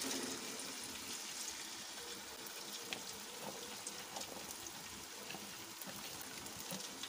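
Raw potato sticks deep-frying in hot oil as more are dropped in by hand: a steady sizzle with scattered small crackles.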